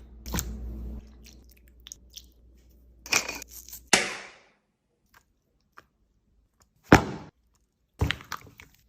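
Sharp crisp crunches with quiet between: one just after the start, two around three to four seconds in, and two more near the end.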